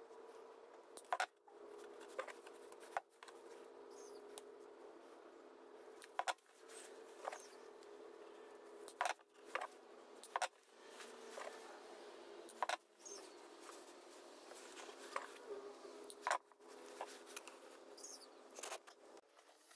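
Hand-held cutter snipping thin wooden craft sticks into short pieces: about a dozen sharp snaps, one every second or two, over a faint steady hum.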